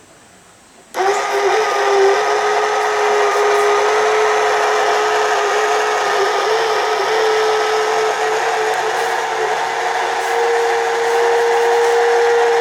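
KOSHIN GT-3S battery-powered sprayer's small electric motor and pump running with a loud, steady whine that wavers slightly and steps up a little in pitch near the end. This is the abnormal noise the owner puts down to rust in the motor, caused by cleaning water that cannot drain out. It switches on about a second in and cuts off suddenly.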